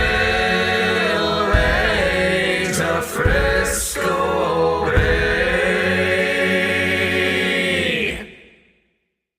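Men's a cappella vocal group singing the final held chords of a shanty-style work song, with a few low thumps under the voices. The last chord dies away about eight seconds in.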